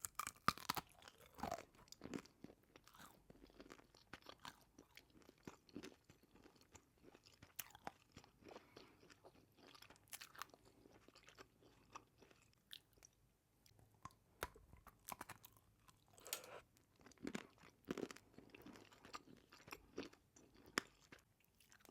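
Close-up chewing of a soft beeswax candy filled with jam: irregular small crunches, crackles and wet mouth clicks, thickest in the first couple of seconds.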